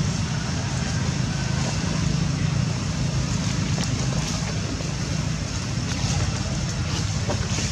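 Steady low engine hum with a constant background hiss.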